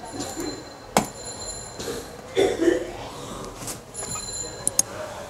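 Computer mouse clicks: one sharp click about a second in and a couple of quick clicks near the end, over faint room noise with a thin steady high-pitched electronic whine.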